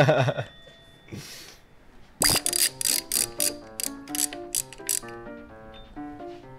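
Hand ratchet wrench clicking in quick, even strokes for about three seconds, starting about two seconds in, as the trunk-lid hinge bolts are worked. A light background melody of short plucked notes runs under it.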